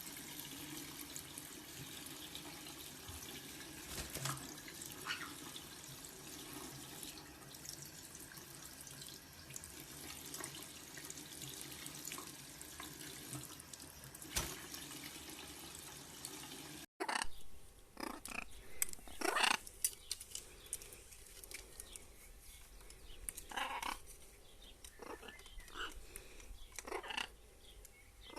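Water running steadily from a tap as a parrot is bathed. After an abrupt cut about two-thirds of the way in, the running water stops and scattered short splashes and clicks are heard.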